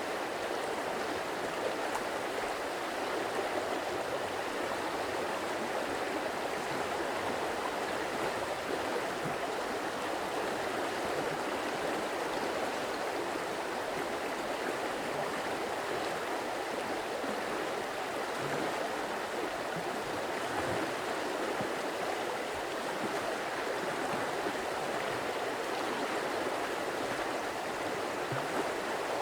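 Stream water flowing and splashing over rocks, a steady rushing burble with no pauses.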